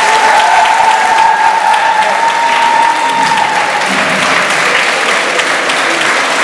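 Crowd applauding, steady dense clapping. A single held tone sounds over the clapping for about the first three seconds.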